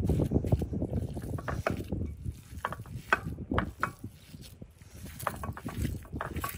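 Hand kneading and squeezing ground lamb mixed with chopped vegetables in a glass dish: irregular squishing and slapping of the wet meat.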